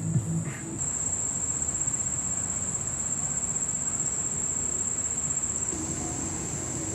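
Steady high-pitched chorus of singing insects such as crickets, coming in about a second in, over a low background rumble.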